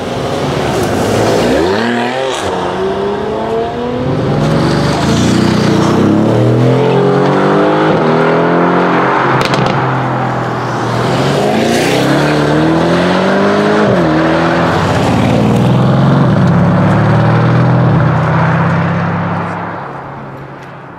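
Several Mercedes-AMG cars accelerating away one after another, including the AMG GT R's twin-turbo V8, their engine notes climbing under acceleration and dropping back at gear changes, with a few sharp cracks. The sound fades away near the end.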